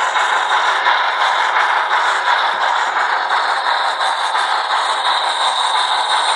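Sound decoder in a Rivarossi H0 model of the Bavarian Br 96 Mallet steam locomotive playing its steam running sound through the model's small speaker: a steady, thin-sounding hiss and clatter with little bass.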